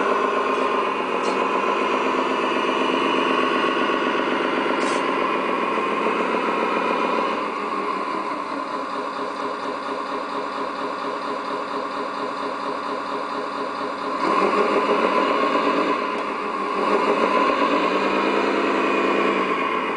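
Simulated Scania V8 engine sound from an RC truck's electronic sound module, played through its small speaker with almost no deep bass. It runs at a raised pitch, drops back to a quieter idle about seven seconds in, then rises again twice near the end as the truck moves off.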